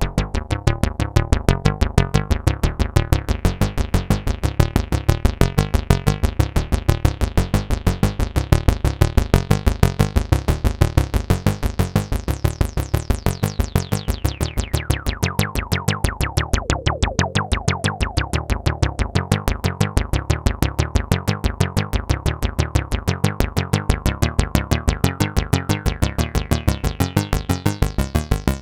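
Behringer Octave Cat analog synthesizer playing a fast repeating sequenced pattern. Its filter sweeps shut about halfway through, turning the tone dark and muffled, then slowly opens up again toward the end.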